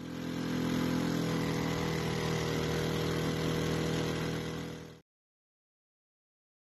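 Seven-horsepower longtail mud motor running steadily under way, pushing a jon boat along a river; the sound cuts off about five seconds in.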